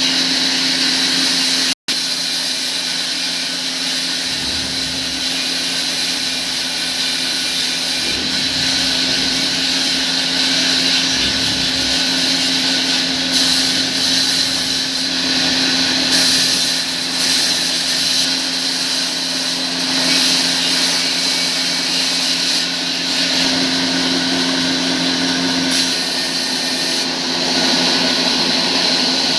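Sawmill workshop machinery running steadily: a whirring noise over a constant hum and a high whine, with a momentary dropout about two seconds in.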